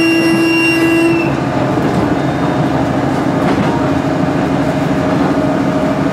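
KiHa 110 series diesel railcar running, heard inside the passenger cabin: a steady mechanical whine over the rumble of the running train, whose pitch steps down to a lower note about a second in.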